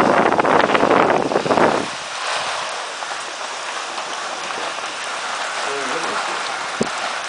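Heavy rain pouring down in a strong storm, with a louder rush of wind-driven rain for the first two seconds before it settles to a steady downpour hiss.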